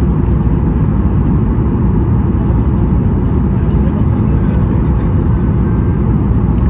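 Strong wind buffeting the microphone: a loud, steady low rumble with no distinct events.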